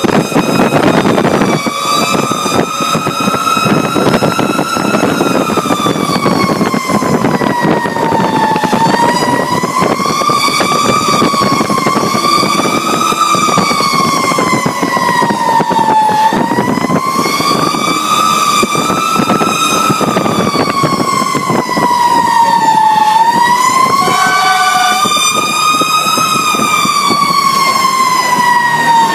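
Fire truck siren sounding a slow wail that rises and falls roughly every six to seven seconds, from the cab of a Pierce Arrow XT aerial ladder truck running on an emergency call. Engine and road noise run under it.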